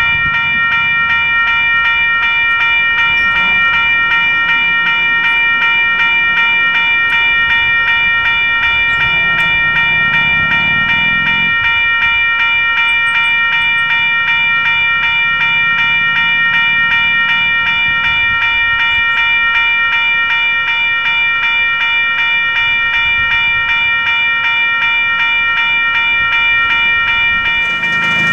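Railroad grade-crossing warning bell ringing on and on in a steady, rapid, even dinging: the signal that a train is approaching and the gates are down.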